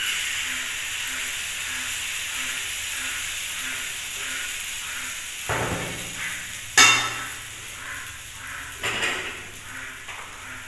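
Pancake batter sizzling as it hits a hot, oiled non-stick frying pan: a steady hiss that starts suddenly and slowly eases. A few knocks of a metal ladle on cookware break in, the loudest about seven seconds in.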